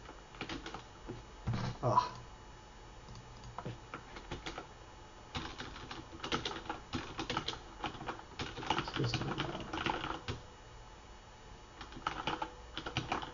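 Computer keyboard typing in irregular bursts of key clicks with short pauses between, as code is typed into an editor.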